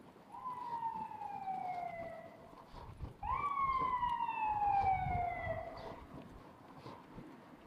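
Emergency vehicle siren wailing in two long sweeps. Each one jumps up quickly and then falls slowly in pitch, and the second, about three seconds in, is louder.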